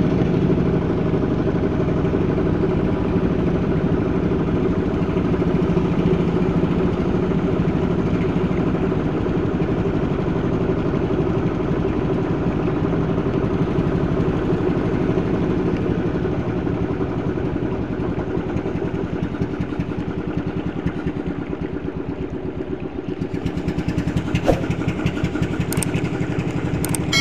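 A small boat engine running steadily at cruising speed, with a fast even firing beat. There are a couple of sharp clicks near the end.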